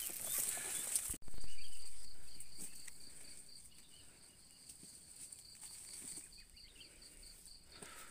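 Footsteps and rustling through dry undergrowth, over insects chirping in a fast, even pulse with a steady high drone behind it. The sound breaks off abruptly about a second in and resumes at once.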